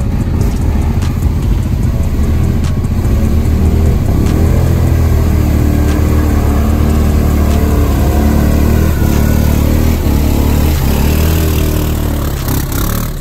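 ATV engine revving hard as the quad churns through a mud hole, getting louder about four seconds in, with a rap beat playing underneath.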